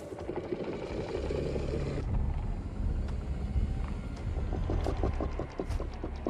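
Film soundtrack: a low rumbling drone that sets in about a second in, with a run of rapid, irregular clicks over the last couple of seconds.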